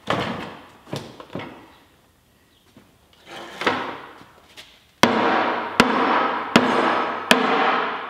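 Knocks and thumps of a glass blender jug holding frozen fruit being handled on a wooden table, then about three seconds of scraping and rattling with four evenly spaced sharp clicks as the jug is taken apart.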